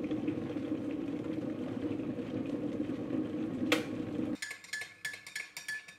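Electric kettle rumbling as it comes to the boil; its switch clicks off sharply about three and a half seconds in and the rumble stops soon after. Then a metal teaspoon tinkles rapidly against a ceramic mug, as in stirring tea.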